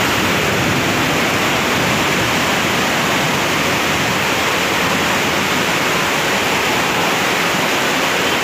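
Heavy monsoon rain and muddy floodwater rushing down a street, a steady, unbroken hiss of falling and flowing water.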